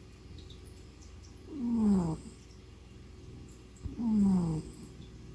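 Gray domestic shorthair cat snoring in its sleep, loud and human-like. Two snores, about two and a half seconds apart, each a pitched tone that falls as it goes. A soft low rumble of breathing runs between them.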